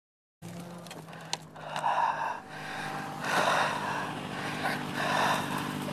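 Several hard breaths and gasps close to the helmet microphone over a motorcycle engine idling steadily.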